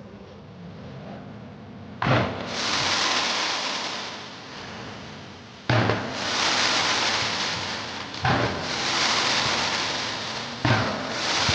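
Fireworks going off: four sharp bangs a few seconds apart, each followed by about two seconds of dense crackling hiss. The first two seconds are quieter, before the first bang.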